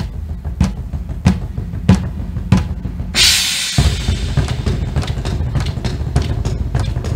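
Live stage drumming on wooden barrel drums struck with hands and sticks over a heavy bass. A stroke falls a little more than every half second, then about three seconds in a cymbal crashes and rings on while the drumming quickens.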